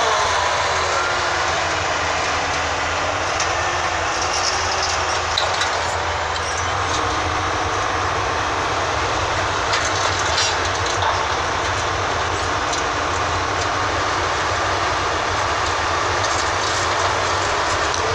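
Excavator's engine running steadily, its pitch wavering and dipping as the machine works, with a few short knocks about five and ten seconds in.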